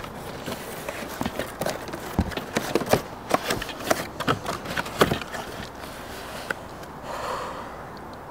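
Cardboard box being torn and pried open by hand: a quick run of crackles and snaps from tape and cardboard, then a brief rustling scrape near the end.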